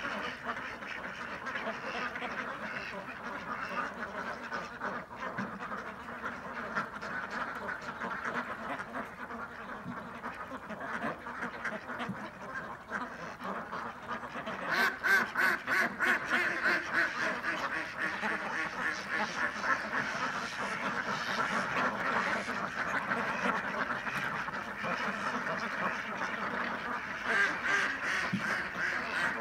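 A large flock of domestic ducks quacking over one another in a continuous chatter, growing louder and busier about halfway through.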